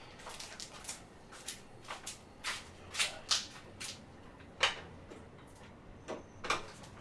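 Kitchen clatter: jars and containers being picked up and set down on a counter, an irregular run of light knocks and clinks, a few of them sharper.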